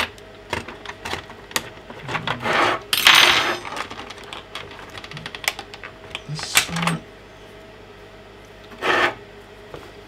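Small metal screwdriver bits and tools clicking and rattling against a plastic bit case as they are picked through, with a longer scraping rattle about three seconds in.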